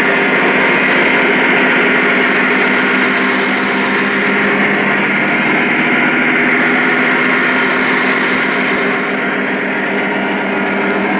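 Lionel Legacy Union Pacific ES44 model diesel locomotives running past: a steady diesel engine drone from their onboard sound system, mixed with the hum of motors and wheels rolling on three-rail track.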